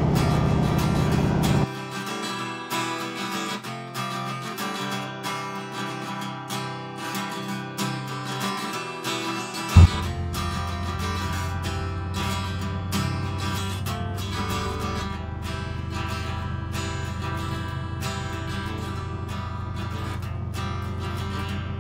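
Strummed acoustic guitar music. Under it for the first couple of seconds is a loud, steady aircraft engine noise that cuts off abruptly, and there is one short thump about ten seconds in.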